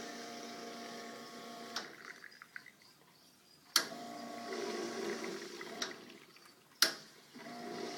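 Gaggia Asso commercial espresso machine's pump humming as it pulls a double shot of espresso. It runs in three spells of about two seconds, each starting or stopping with a sharp click.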